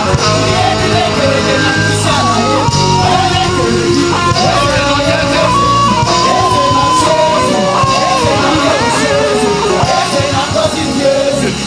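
Live gospel praise band playing: electric guitar, bass and drums under several voices singing together.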